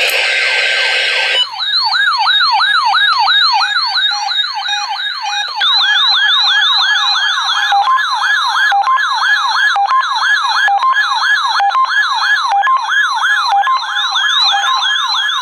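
Weather alert radios sounding their siren-style alarms, set off by a NOAA Weather Radio required weekly test. After a noisier first second and a half comes a loud warbling tone sweeping up and down about three times a second. About six seconds in, a second warble joins it, with short beeps.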